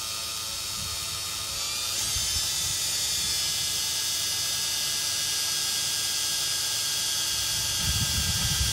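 Cordless drill running steadily under load as it bores through the vehicle's sheet-metal floor, a continuous motor whine with hiss. The pitch steps up slightly about two seconds in, and the drill stops right at the end.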